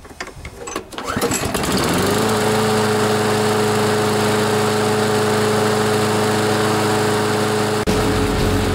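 A 7-horsepower Briggs & Stratton engine on a Toro Recycler mower starts about a second in, revs up over about a second and settles into a steady run. It now starts and keeps running because its plugged carburetor main jet has been cleaned.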